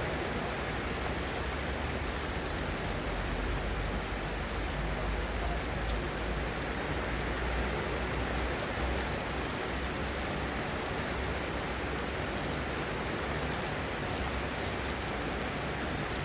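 Steady rain falling, an even hiss with faint scattered drop ticks and a low rumble underneath.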